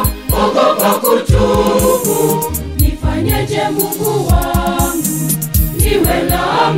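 Choir singing a Swahili Catholic song over backing music with a steady beat.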